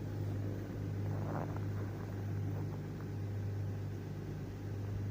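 Kia Magentis 2.5-litre V6 engine idling steadily with an even hum and no knock audible yet.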